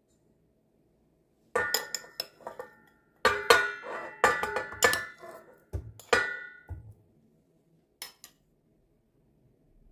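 A metal spoon clinking and scraping against a ceramic dish and a stainless steel mixing bowl as lumps of solid shortening are spooned out, a run of sharp ringing clinks. Two light taps follow near the end.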